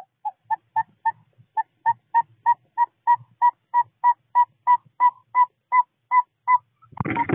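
Northern saw-whet owl giving its advertising call: a long, even series of about twenty short whistled toots, around three a second. Near the end a loud scratchy noise starts under the last toots.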